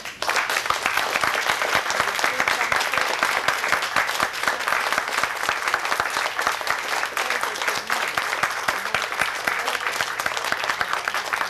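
Audience applauding: many hands clapping in a dense, even patter that starts suddenly and holds steady.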